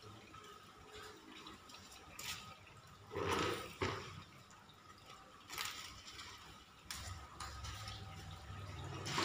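Hand-washing a soapy car: wet swishes and splashes of a wash mitt and bucket water, with the loudest swishes about three seconds in. A low hum comes in near the end.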